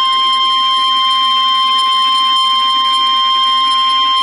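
Emergency alert tone for a tornado warning: one loud, steady, unbroken high-pitched tone, the 1050 Hz warning alarm tone of NOAA Weather Radio, which signals that a warning message follows.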